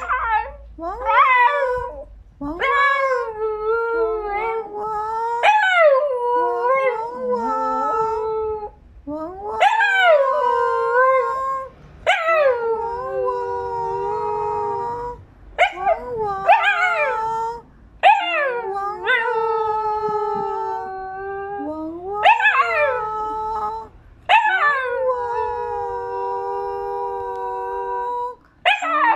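Siberian husky howling, about a dozen drawn-out howls in a row, each swooping down in pitch at the start and then held steady, with short breaks between them.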